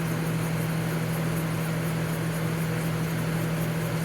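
Montgomery Ward dehumidifier running steadily: a constant low compressor hum under the even rush of its fan. It is running in air too cool for it, so its evaporator coil is frosting over.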